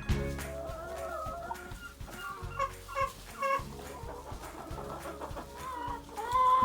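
Chickens clucking: a quick run of short clucks a little past halfway in, then longer drawn-out calls near the end.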